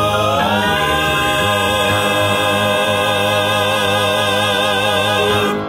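A gospel vocal quartet sings the song's final held chord without accompaniment. The voices slide up about half a second in, hold the chord with vibrato, and release near the end.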